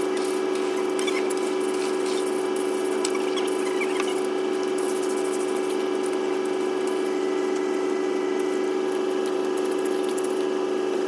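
A machine motor running with a steady, even hum, with light clicks and a few short squeaks over it.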